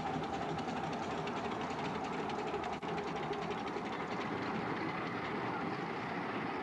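A Tinkerbell-type 10¼-inch gauge miniature steam locomotive running past while hauling passenger carriages on the miniature railway, with a quick, even beat over a steady rumble.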